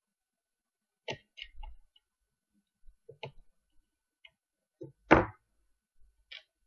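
Scattered small clicks and knocks of hands working the microcontroller chip out of its socket on an Arduino board, about seven in all, with the loudest knock about five seconds in.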